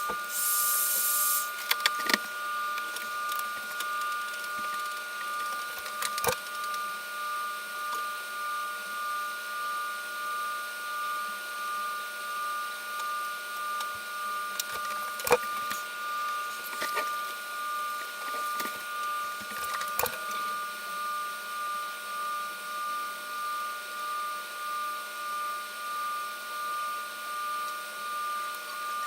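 A USB arc lighter gives a short crackling hiss as it lights the Zippo handwarmer's catalyst. Then a steady high-pitched whine swells and fades about once a second, with a few sharp clicks.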